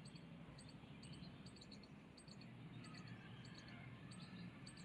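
Near silence: faint room tone with short, high-pitched chirps repeating irregularly a few times a second.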